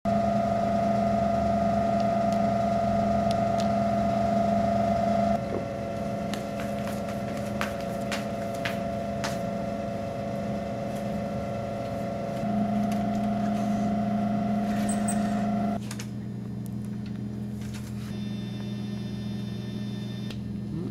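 Vending machine humming steadily, with a few faint clicks. The hum steps down in level about five seconds in, comes back up around twelve seconds, and drops sharply near sixteen seconds.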